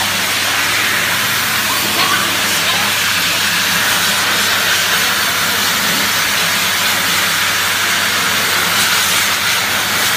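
Pet grooming blower dryer blowing a steady, loud hiss of air through its hose and nozzle onto a wet husky puppy's coat.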